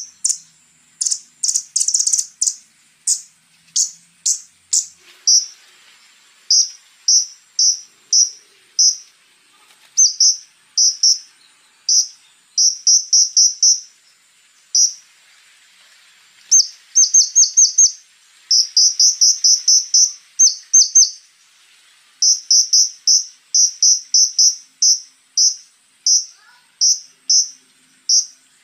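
Konin (scarlet-backed flowerpecker) calling hard: runs of short, sharp, very high chirps fired in quick clusters of a few notes, with brief pauses between clusters. A faint steady high insect-like trill runs underneath.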